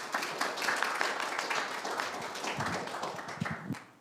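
A small congregation applauding, the clapping dying away near the end.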